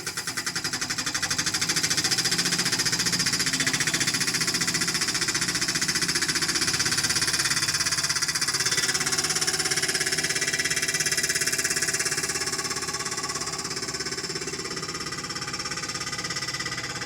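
Mechanical post driver hammering a fence post into the ground with rapid, steady blows, a little quieter in the last few seconds.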